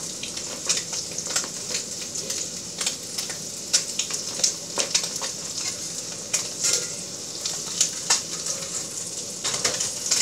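Rockfish fillet searing in butter in a stainless steel skillet over high heat: a steady sizzle with irregular crackles and pops.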